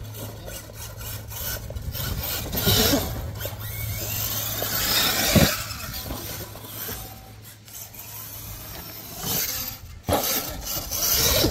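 RC monster truck driving hard on a dirt course: gritty drivetrain and tyre noise that rises and falls with the throttle, with sharp knocks as it lands. The loudest knock comes about five and a half seconds in, another just after ten.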